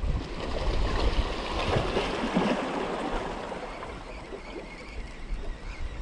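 Wind buffeting the microphone over water washing against jetty rocks, the wash swelling about a second in and easing off over the next few seconds.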